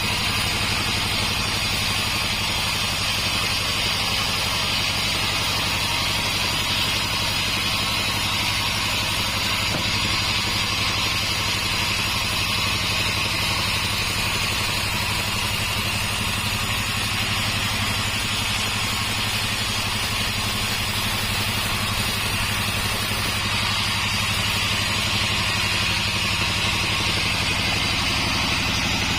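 Sawmill's engine running steadily at an even speed, with a steady hiss above it.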